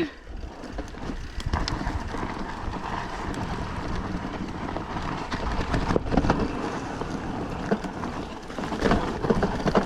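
Mountain bike rolling down a steep, rough trail: tyres skidding and bumping over wet roots and rocks, the bike rattling with many short knocks, and wind buffeting the microphone.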